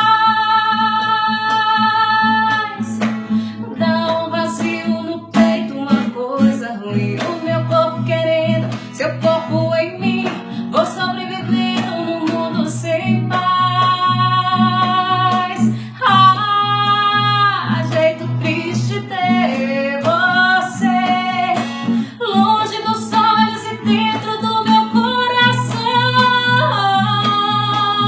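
Music: a woman singing over strummed acoustic guitar with a steady bass line.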